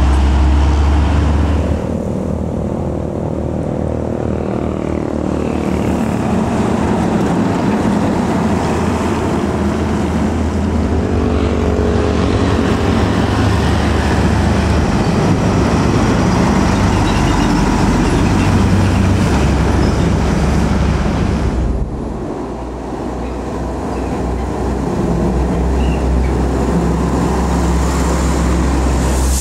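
Heavy diesel trucks, one of them a Mitsubishi Fuso The Great, passing one after another on a highway: engine drone and tyre rumble. The engine note slides in pitch during one pass, and the sound changes abruptly twice as one truck's pass gives way to the next.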